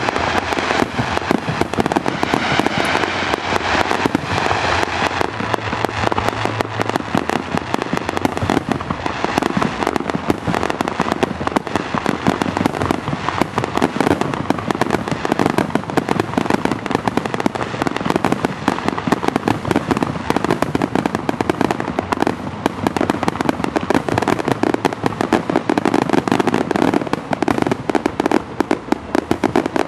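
Aerial fireworks shells bursting in a dense, unbroken barrage, with many sharp reports and crackles overlapping and no pause between them.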